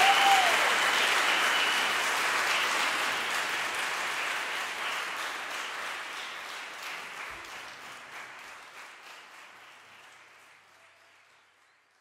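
Audience applauding, steadily fading down to silence, with a brief cheer near the start.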